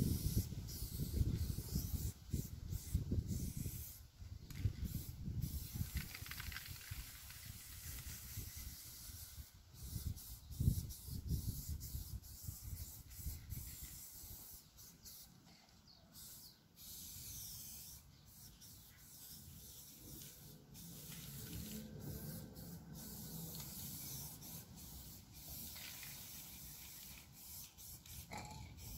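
Aerosol spray-paint cans hissing in bursts of varying length as the paint is laid on, with short pauses between strokes. A low rumble runs underneath, strongest in the first half.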